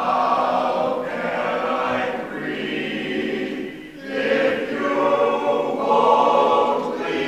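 Men's chorus singing together in sustained phrases, breaking off briefly about four seconds in before coming back in on a new phrase.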